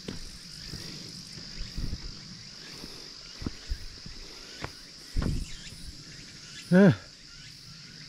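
A steady high-pitched insect chorus, with scattered footfalls on a mountain road and a duller thud about five seconds in. A short loud vocal sound from the walker comes near the end.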